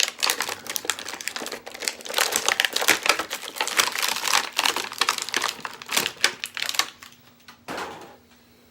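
Thin plastic toy packaging crinkling as it is handled: a dense run of crackles that stops about seven seconds in, with one last short rustle near the end.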